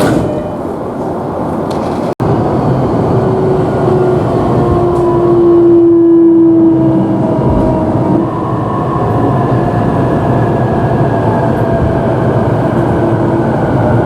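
E233-3000 series electric train running with a steady rumble and a motor whine whose tones slowly fall in pitch as it slows.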